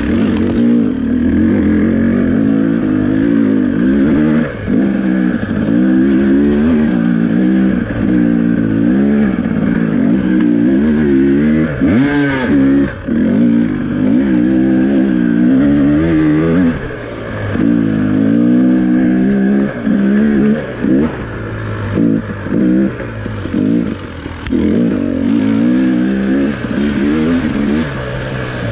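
2018 KTM 300XC single-cylinder two-stroke dirt bike engine, through a stock pipe and FMF Turbine Core 2.1 silencer, revving up and down constantly under hard trail riding. In the second half the throttle is chopped several times, with short dips between bursts, and there is a brief knock about twelve seconds in.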